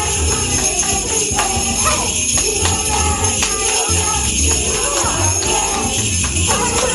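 Protsman sleigh bells jingling steadily, a dense continuous ringing with no break.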